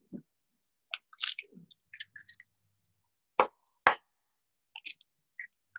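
Eggs being cracked open by hand over a bowl: small crackles and squishes of shell, and two sharp knocks about half a second apart near the middle.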